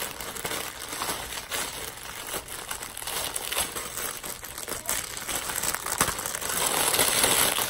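Clear plastic garment bag crinkling and rustling as it is handled and pulled open, getting louder toward the end.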